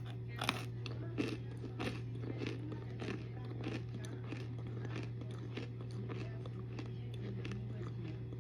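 Someone biting into and chewing a hard baked cornstarch brick: a run of crisp crunches, the loudest in the first two seconds, then smaller crunches throughout. A steady low hum runs underneath.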